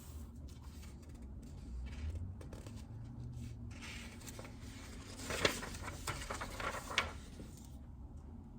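Faint desk-work sounds: about four seconds in, a flurry of light clicks and rustling starts, with two sharper clicks, and it stops just before the end.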